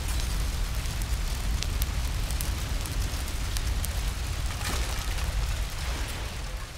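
Fire sound design in a film-score track: a deep, steady rumble under a noisy hiss, with scattered crackles and pops like a large blaze burning.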